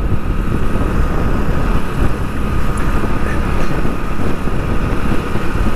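Motorcycle ridden at a steady cruising speed: the engine runs evenly under a loud, steady rush of wind on the microphone, with a faint steady high whine.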